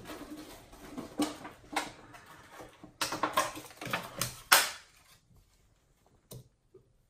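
Irregular clicking and crackling, like small things being handled, with the sharpest click about four and a half seconds in; after that it is nearly quiet.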